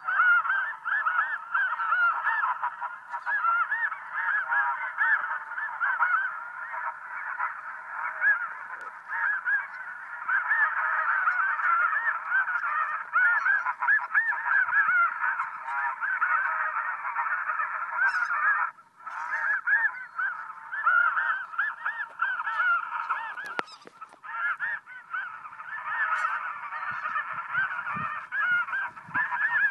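A large flock of geese calling, many overlapping high honks and yelps in a continuous din, with a brief lull about two-thirds of the way through.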